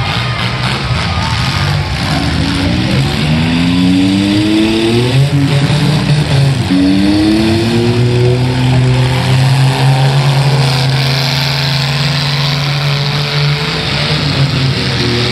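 Mini-truck engines revving hard in a demolition derby, more than one at once. The pitch climbs twice in the first half, then holds high for several seconds before dropping near the end.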